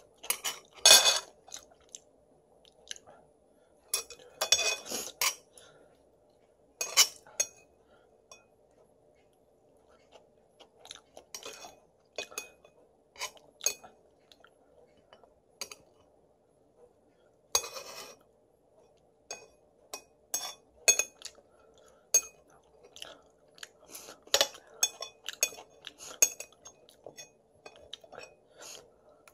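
A person eating ramen-tteokbokki: metal chopsticks clicking and scraping against a ceramic plate, with chewing and louder mouthfuls now and then, over a faint steady hum.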